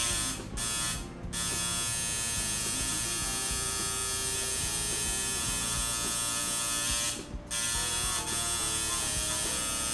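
Tattoo machine buzzing steadily as it works on skin, cutting out briefly three times: twice in the first second and a half and once around seven seconds in.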